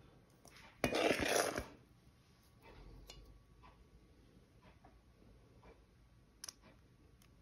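A spring-loaded metal cookie scoop working thick peanut butter fudge mixture between a metal bowl and a silicone mold: mostly quiet, with a short scrape about a second in and a few faint clicks of the scoop's spring lever.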